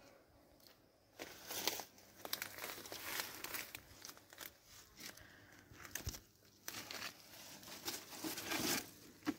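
Leaves and undergrowth rustling and crackling in irregular bursts as someone pushes through dense brush, starting about a second in.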